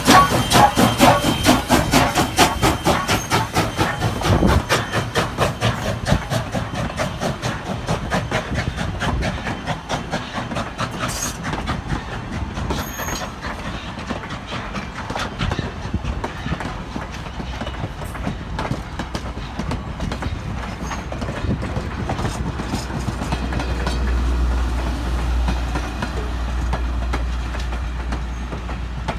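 Train cars rolling past, their wheels clicking over rail joints in an even rhythm that fades as the train moves away. A low buffeting of wind on the microphone comes in near the end.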